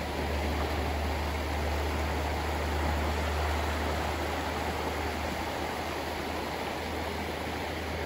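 Shallow river rushing over rocks and gravel riffles: a steady, even rush of water, with a steady low rumble underneath.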